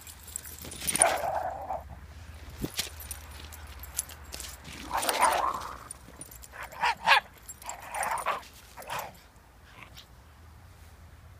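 Shiba Inus vocalizing during rough play in a series of short barks and yips, about half a dozen separate bursts, the longest about a second in.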